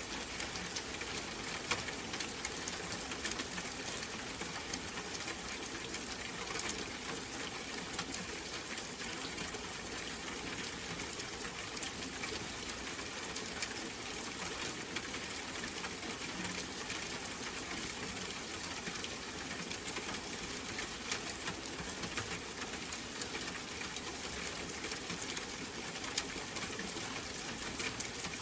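Steady rain falling: an even hiss made of countless fine drop patters, with a few louder single drops now and then.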